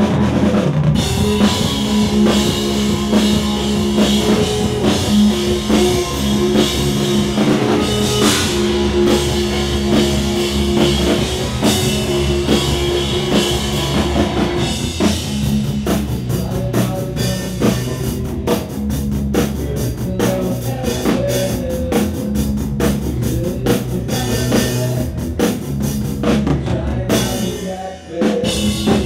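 Live rock band playing an instrumental passage: drum kit with cymbals, electric guitars and bass. From about halfway the held guitar notes give way to busier drumming, and the sound drops for a moment near the end before the band comes back in.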